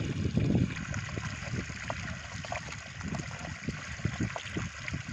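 Water running through a cut in a mud bank and pouring down a narrow mud channel into a woven bamboo basket, a steady trickling wash with small splashes and ticks. It is a little louder in the first half second.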